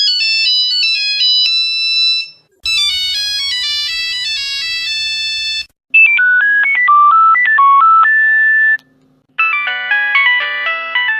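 Nokia mobile phone ringtones played one after another: four short melodic snippets of about three seconds each, separated by brief silences, each version with a different tone.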